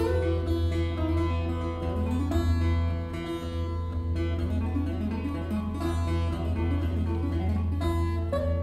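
Taylor 314CE acoustic guitar played solo in fingerstyle, a picked melody running over bass notes.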